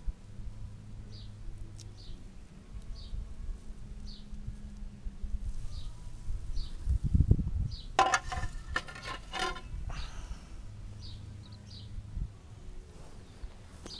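Outdoor garden ambience: a short high chirp repeating about once a second over a low rumble. About seven seconds in there is a low thud, followed by a brief run of rapid, rasping pulses.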